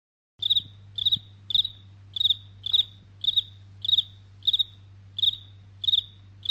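Cricket chirping, used as a comic 'awkward silence' sound effect. Dead silence, then about half a second in a regular run of short, high, trilled chirps begins, roughly one every 0.6 s, over a faint low steady hum.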